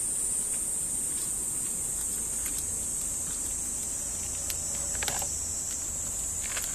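Steady high-pitched drone of insects, with a few faint clicks scattered through it and a small cluster about five seconds in.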